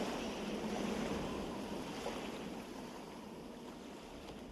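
Recorded ocean surf with a rush of wind, with no melody or voice, slowly fading down.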